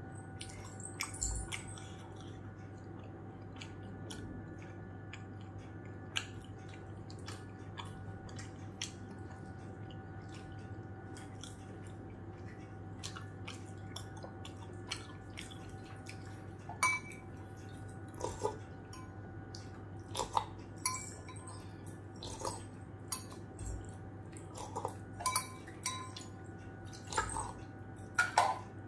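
Close-miked wet mouth sounds of someone eating: chewing, smacking and small clicks, sparse at first and coming more often in the second half. A faint steady hum runs underneath.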